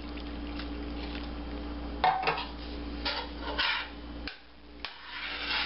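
A metal spoon stirring thick chili in a stainless steel stockpot, scraping and clinking against the pot's side and bottom in short irregular strokes from about two seconds in. A steady low hum runs underneath.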